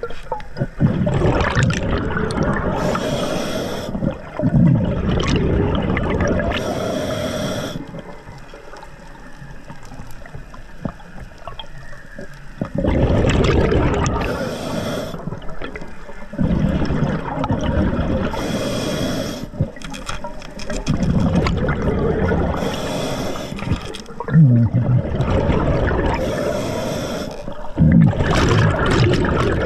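Scuba diver breathing through an Atomic regulator: a short hiss on each inhale, then a bubbling rush of exhaust bubbles on each exhale, in a slow repeating cycle. A few seconds of quieter water noise come about a third of the way through, before the breathing picks up again.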